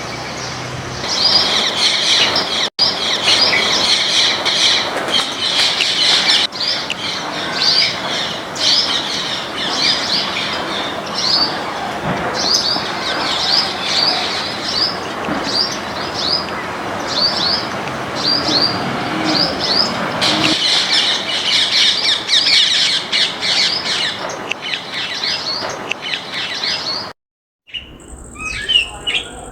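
Birds chirping: a busy stream of short, high chirps, thinning to about two a second in the middle and thickening again later, then an abrupt break near the end.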